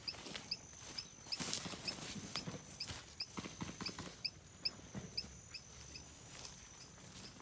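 Footsteps and rustling through dry brush, scattered short knocks and crunches. Behind them, short high chirps repeat evenly, about four a second.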